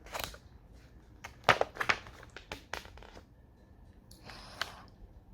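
Paper rustling and crinkling as a picture book's pages are handled and turned: a run of short, crisp rustles, the loudest about a second and a half in and another cluster near the end.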